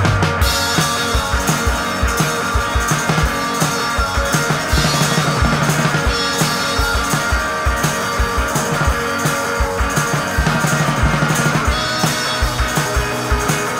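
Rock music with guitar and a steady drum-kit beat.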